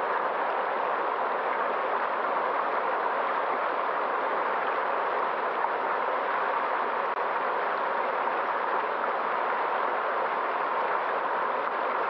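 Small woodland stream running and splashing over rocks in a low cascade: a steady, even rush of water.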